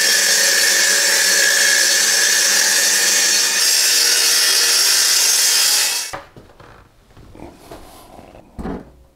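Handheld circular saw cutting through an OSB board: a steady high whine with the noise of the cut, stopping abruptly about six seconds in. Faint knocks and rubbing of a board being handled follow.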